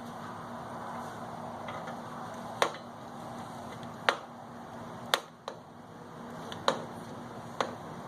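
About six short, sharp clicks or taps at irregular intervals, roughly a second apart, over a steady low hum.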